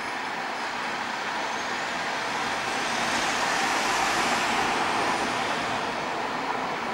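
Street traffic noise, with a van driving past close by: its noise swells to a peak about four seconds in and then fades.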